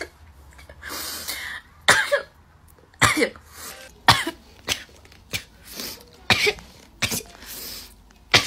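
A person coughing in a rapid fit of about eight short, sharp bursts, with noisy breaths drawn between them.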